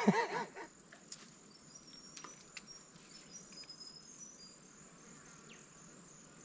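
Insects chirping steadily in a high, evenly pulsing drone, with a few faint clicks in the first few seconds.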